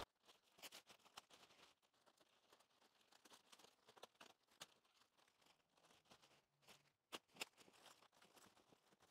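Near silence, broken by a few faint short clicks and ticks.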